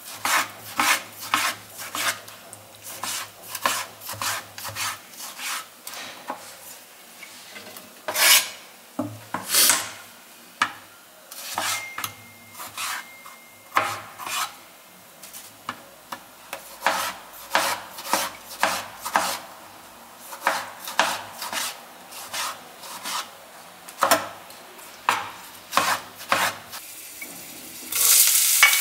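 Kitchen knife chopping tomatoes on a plastic cutting board: irregular sharp knocks of the blade on the board, a few a second. Near the end, chopped onion tipped into hot oil in a pan starts sizzling.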